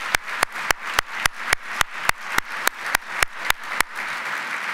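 Audience applauding, with one person's sharp, evenly paced hand claps close to the microphone, about four a second. The close claps stop near the end while the room's applause goes on.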